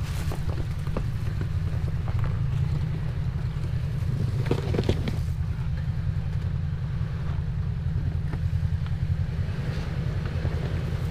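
Off-road vehicle running slowly over a rocky trail: a steady low rumble, with scattered crunches and knocks from the tyres on rock, a cluster of them about halfway through.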